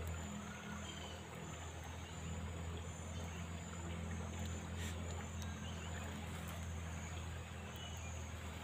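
Steady low motor hum running without a break, with a faint high buzz pulsing above it.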